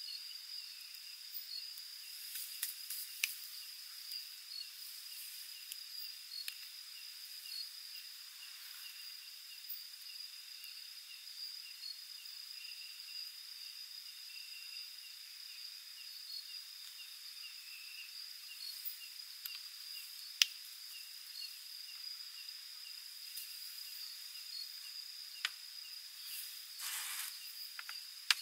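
Steady high trilling of night insects, crickets, over the even hiss of a lit portable butane stove burner. A few sharp clicks of cookware sound, and a brief rustle of handling comes near the end.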